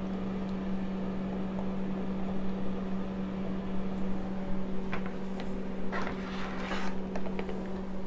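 A steady low hum, with a spoon scraping a wet batter mixture out of a measuring cup into a mixing bowl: a few soft scrapes and taps come about five to seven seconds in.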